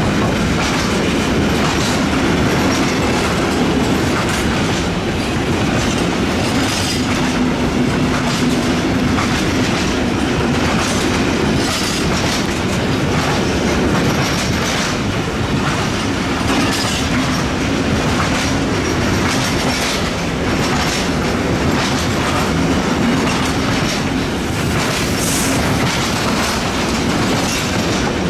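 Intermodal freight train's container and trailer wagons rolling past, a steady rumble with continual clacking of wheels over rail joints and an occasional brief wheel squeal.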